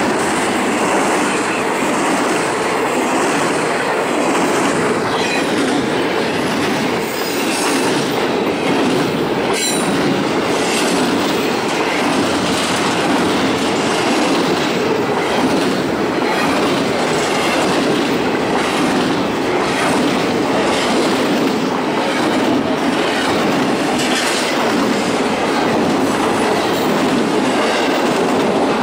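CSX double-stack intermodal freight train rolling past at speed: a steady loud rumble of the well cars with the wheels clacking over the rail joints again and again.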